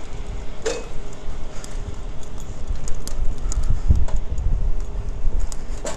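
Gusty low rumble of wind on a handheld phone's microphone at the tip of a raised aerial fire ladder, with scattered light clicks and clinks from climbing on the metal ladder.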